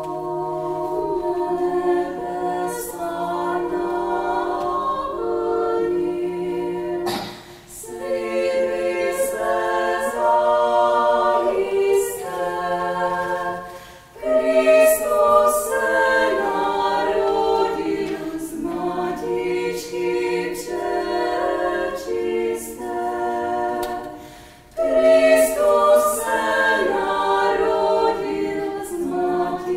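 Choir singing a cappella, sustained chords moving from note to note, with three short breaks between phrases.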